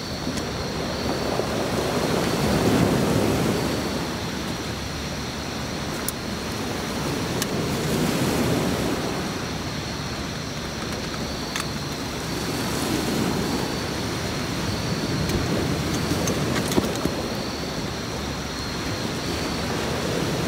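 Sea waves breaking and washing up a beach, the surf swelling and fading about every five to six seconds.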